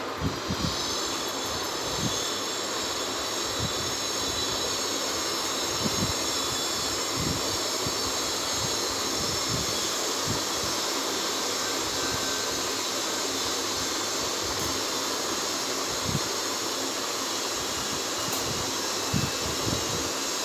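A steady machine whir with a high hiss, starting about half a second in, with soft scattered knocks from paper being handled on the table.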